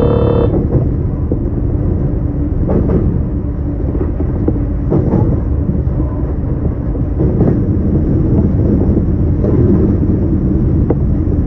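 Running noise of a JR Kyushu BEC819-series train heard from inside the car: a steady low rumble from wheels on rail, with a faint click from the wheels every couple of seconds.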